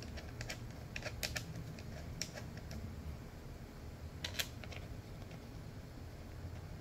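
Faint, scattered clicks and ticks of a small metal screw and the radio's faceplate being handled as the screw is started by hand into the aluminium case of a Lab599 TX-500 transceiver.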